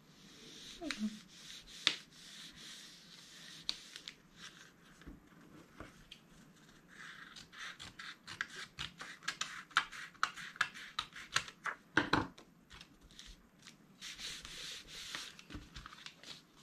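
Hands sliding and rubbing sheets of cardstock and paper across a cutting mat, with a run of small ticks and taps through the middle and one louder knock later on.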